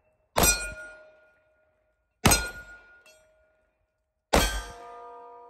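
Three pistol shots from a Smith & Wesson M&P Shield Plus, about two seconds apart. Each is followed by the ring of a steel plate target being hit. The third shot sets ringing a plate with a different pitch.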